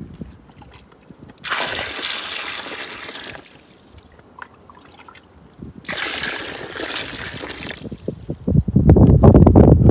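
Water poured in a trickling stream twice, each pour lasting about two seconds. Near the end a louder low rumble sets in.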